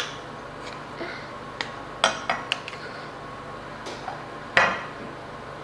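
Kitchen utensils and dishes clinking and knocking: a series of sharp separate knocks, the loudest one ringing briefly about four and a half seconds in.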